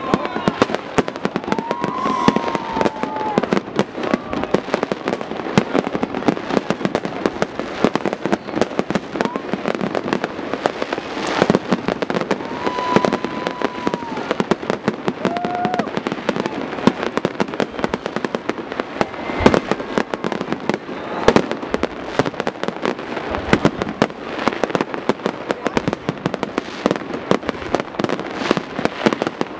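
Large aerial fireworks display: a continuous, dense barrage of overlapping bangs and crackles with no pause, a few single booms standing out louder than the rest.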